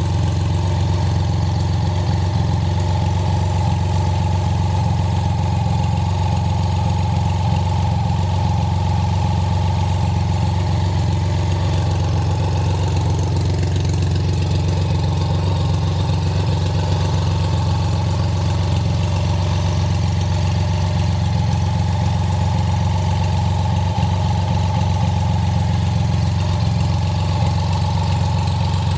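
BMW cafe racer motorcycle engine idling steadily, with no revving.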